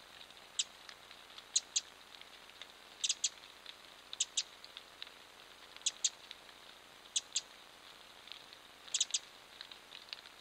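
A small bird's sharp chip calls, mostly in quick pairs and now and then three, repeated about every second and a half, over a faint trickle of creek water.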